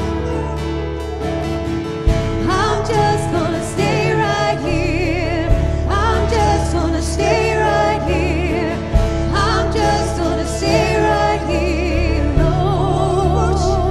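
Live worship music: women singing with vibrato into microphones over keyboards and a sustained low bass, with a sharp accent roughly every three and a half seconds.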